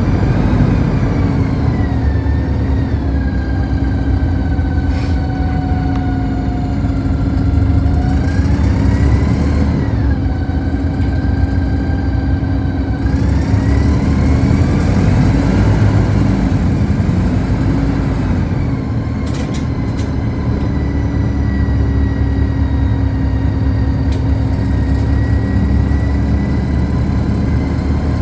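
City bus driving, heard from inside the passenger cabin: a steady drivetrain drone with a whine that rises and falls as the bus speeds up and slows down. A few brief clicks come about two-thirds of the way in.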